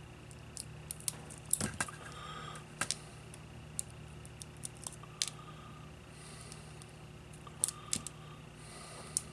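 Scattered sharp clicks and light metallic taps of tiny screws and small parts being handled on a workbench, with a small cluster about a second and a half in and another near the end.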